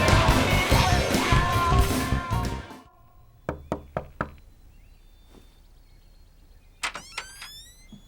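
Music that stops abruptly about three seconds in, followed by four sharp knocks on a door and, near the end, a quick cluster of further knocks.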